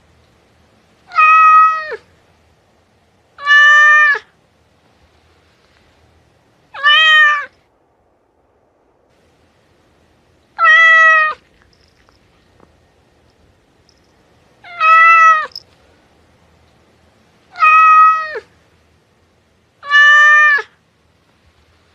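Domestic cat meowing seven times, each meow short and held on one pitch before dipping down at the end, with gaps of two to four seconds between them.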